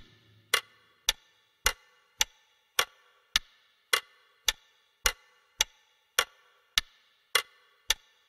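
Clock ticking sound effect: evenly spaced single sharp ticks, a little under two a second, each with a faint short ring.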